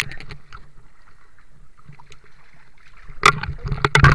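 River water splashing and sloshing around someone wading in the shallows, with a short run of louder, sharper splashes from about three seconds in.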